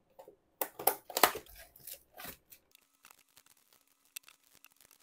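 Scissors cutting the plastic wrap on a trading-card booster box, with loud crackling and tearing of the plastic for about two seconds. After that, faint rustling and ticking as the foil booster packs are handled.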